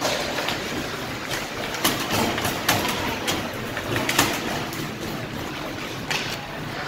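Ice hockey play on a rink: skate blades scraping the ice and several sharp clacks of sticks on the puck, over a steady arena din.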